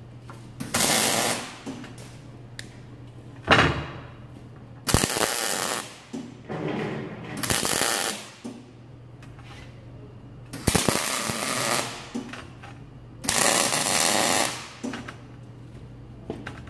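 MIG welder laying tack welds on sheet steel: about six separate bursts of crackling arc, each roughly a second long, with a steady low hum between them.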